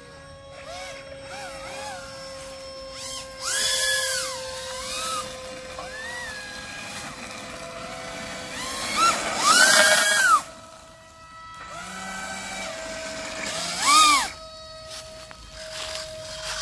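Small brushless electric motor and pusher propeller of a foam RC jet model (Hobbywing 2405, 2850 kV, on 4S) being throttled up and back down in short bursts, a whine that rises and falls in pitch. It revs several times, loudest about 4, 10 and 14 seconds in.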